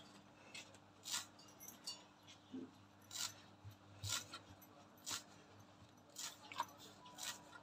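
Metal scissors snipping through a bunch of fresh coriander stems: short, sharp snips, one or two a second.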